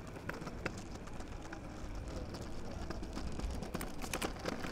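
Child's three-wheeled kick scooter rolling over paving slabs: a steady rumble from the small wheels with irregular clicks as they cross the joints.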